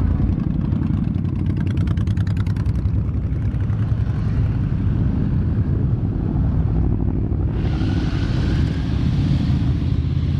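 A procession of motorcycles riding slowly past close by, their engines running. A fast, even exhaust beat stands out over the first few seconds. A brighter, louder engine sound comes in about three quarters of the way through as more bikes pass.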